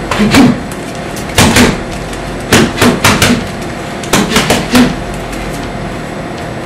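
Boxing-gloved fists punching a wall: about a dozen heavy thumps in four quick flurries of two to four blows each, over a steady background hum.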